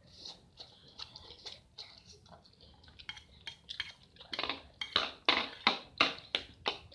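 Cutlery clinking and scraping on a plate in quick, repeated strokes as fried noodles are eaten fast, getting louder and more rapid about four seconds in.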